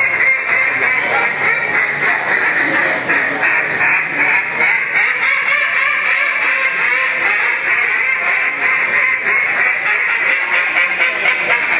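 Two hand-held duck calls blown at once in a two-man 'meat' duck-calling routine, a realistic imitation of live ducks: a dense, rapid stream of quacks and chatter with no pauses.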